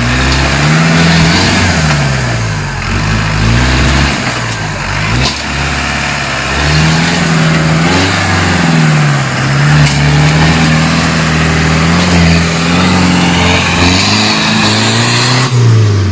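Off-road buggy's engine revving hard under load as it claws up a steep dirt slope, its pitch rising and falling over and over. There is a brief knock about five seconds in.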